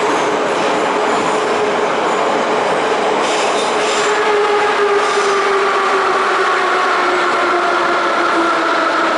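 Moscow metro 81-717/714 "Nomernoy" train running in a tunnel, heard from inside the car: a steady loud rumble of wheels and motors. Over it, a motor whine falls slowly in pitch as the train slows, and a higher whine joins about four seconds in.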